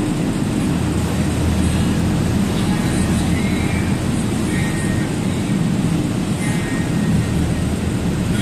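Truck engine and tyre noise inside the cab while cruising on the highway: a steady low drone that neither rises nor falls.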